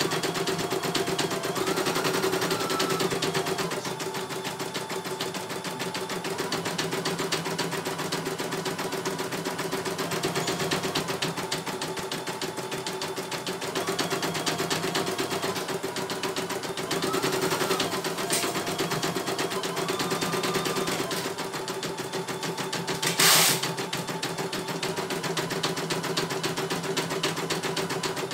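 CNY E900 computerized embroidery machine stitching a design: a fast, steady needle clatter over the hum of its motor. A short loud noise cuts in about 23 seconds in.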